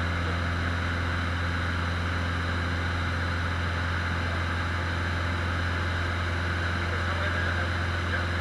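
Cessna 150's Continental O-200 four-cylinder engine and propeller droning steadily in flight, heard from inside the small cabin.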